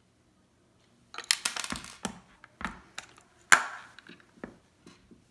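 Clear plastic faucet knob being handled and pushed onto its cartridge stem on a chrome faucet body: a quick run of clicks and rattles starting about a second in, then a few separate sharp clicks, the loudest about three and a half seconds in.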